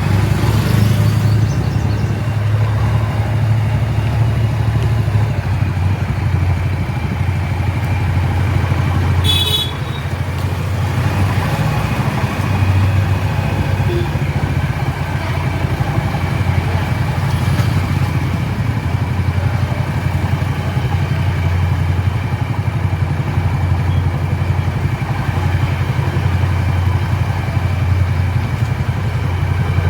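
Diesel engine of a new JCB 3DX Eco Xpert 49 HP backhoe loader running steadily. A brief high-pitched sound cuts in about nine seconds in.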